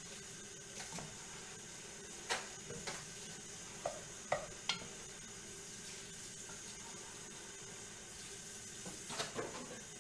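Mushrooms and onions sizzling steadily as they sauté in an enameled pot, with a wooden spoon stirring and knocking against the pot several times around the middle and again near the end.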